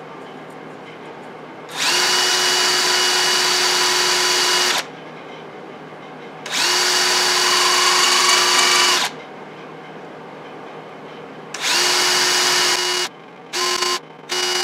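Electric drill spinning an abrasive point pressed onto a metal gauge panel to cut engine-turned swirls. It runs with a steady whine in three spells of a few seconds each, stopping in between, then gives a few short blips near the end.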